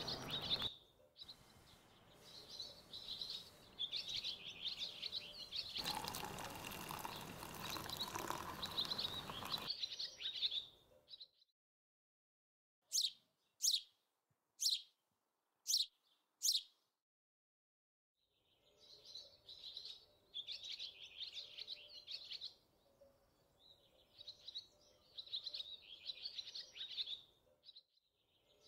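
Small songbirds chirping and singing, in two stretches with a silent gap between. A steady hiss runs under the first stretch for a few seconds, and five short sharp clicks sound in the gap.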